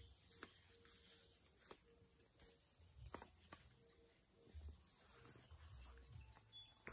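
Near silence with a faint, steady high-pitched insect drone, broken by a few soft ticks.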